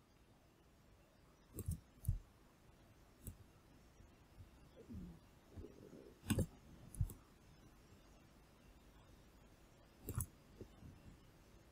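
Scattered sharp clicks of a computer mouse and keyboard, a few seconds apart, some in quick pairs, as a Ctrl+D shortcut is pressed and objects are clicked and dragged.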